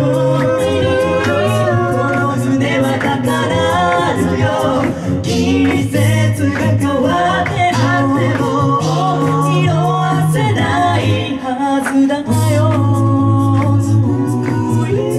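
Mixed male and female a cappella group singing a pop song live in close harmony, over a sung bass line that holds low notes for a second or more at a time. Vocal percussion keeps a steady beat of crisp ticks.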